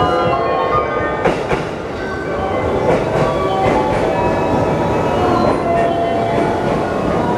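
JR West 205 series electric commuter train pulling into the station platform and running past at slowing speed, with a steady rolling rumble and a few sharp wheel clicks over rail joints.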